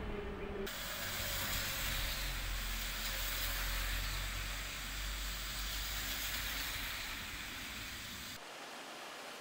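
Rain on a wet street with a car driving past, its tyres hissing on the wet road and a deep engine rumble that swells and fades. It opens with a moment of metro train rumble that cuts off abruptly, and near the end it cuts to a quieter steady rain hiss.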